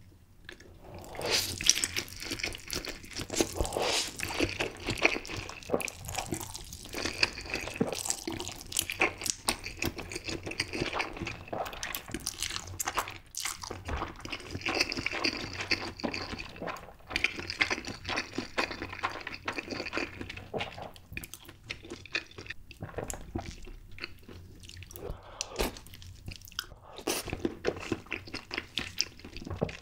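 Close-miked slurping and chewing of spicy stir-fried instant noodles: wet, irregular mouth sounds that go on almost without a break from about a second in.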